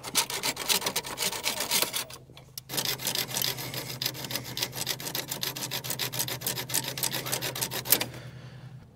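Metal fuel lines on a diesel truck being cut through by hand: quick rasping, scraping strokes, with a brief pause a little over two seconds in.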